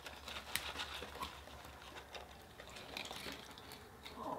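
Quiet eating sounds at a table: scattered small clicks and soft rustles of food being chewed and burger boxes and paper wrappers being handled.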